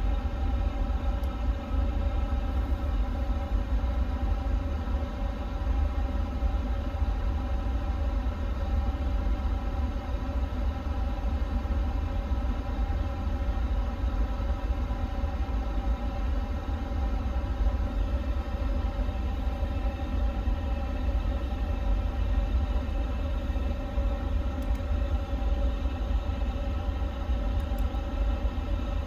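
Steady background noise of a powered Airbus A350 cockpit on the ground: a constant low rumble with a steady multi-tone hum, the fan and airflow noise of the cockpit's ventilation.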